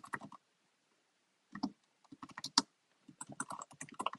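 Typing on a computer keyboard: quick runs of keystrokes, with a pause of about a second shortly after the start.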